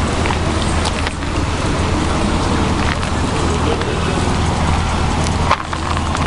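Steady background noise of a city harbour at night: a low engine-like hum under a broad hiss, with a few faint clicks and a brief knock a little over five seconds in.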